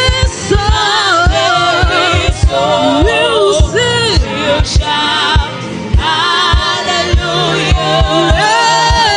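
Gospel worship singing: a group of voices with vibrato over a live band with a steady drum beat.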